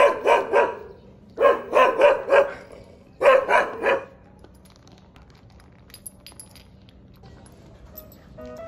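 Squeaker in a rubber dog ball squealing in quick runs of three or four as a Shiba Inu puppy bites down on it, three runs in the first four seconds. Then only faint small clicks, and music comes in near the end.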